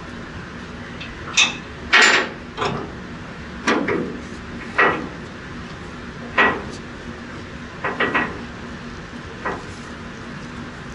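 Irregular knocks and clunks, about ten in all and loudest about two seconds in, from a deckhand handling the mooring ropes on the river cruise ship's bow deck as the ship casts off, over a steady low hum.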